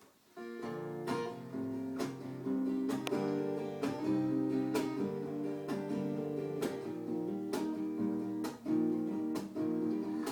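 Acoustic guitar playing the instrumental intro of a song: chords strummed in a steady rhythm, starting about half a second in.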